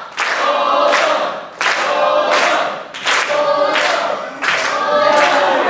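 Choral singing in music, phrase after phrase.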